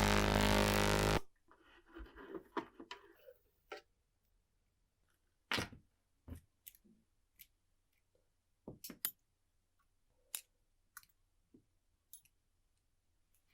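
A loud running machine cuts off abruptly about a second in, leaving a dozen or so scattered sharp clicks and light taps of small metal clock parts being handled and set down on a workbench.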